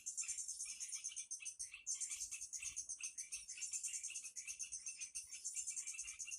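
Dense chorus of forest insects and frogs: a continuous, rapidly pulsing high trill with shorter repeated calls lower down.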